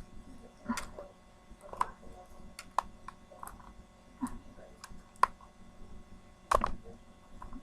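Stiff plastic toy packaging being worked open by hand, giving irregular sharp clicks and crackles, the loudest about five and six and a half seconds in.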